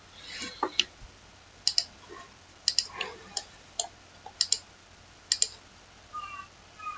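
Computer mouse button clicks, sharp and mostly in quick pairs, about one a second, as planes are picked one after another in CAD software. Near the end there are two brief faint high tones.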